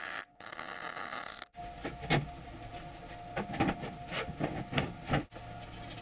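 Workshop fabrication sounds: a brief hissing noise, then after a cut a run of irregular knocks and clanks, about seven over four seconds, as steel stove parts are handled, over a faint steady hum.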